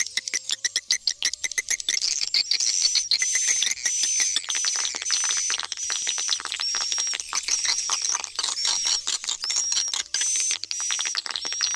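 Recorded edible-nest swiftlet calls played back as a stereo mix of a "tarik" lure call and an "inap" roost call, the sounds used to draw swiftlets into a swiftlet house. A dense, rapid clicking twitter runs throughout, and from about two seconds in a high whistled chirp repeats about every two-thirds of a second.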